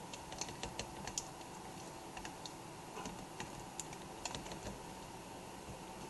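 Faint, irregular light clicks and taps of fingers pressing the display connector and its tape down on the back of a laptop screen panel.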